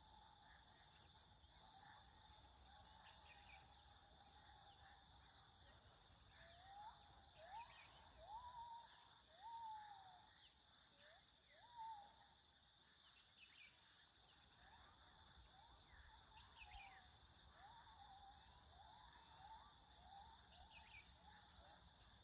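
Faint open-country ambience: a steady high insect drone, with a bird calling in short, repeated rising whistled notes in two runs, one a quarter of the way in and one in the second half.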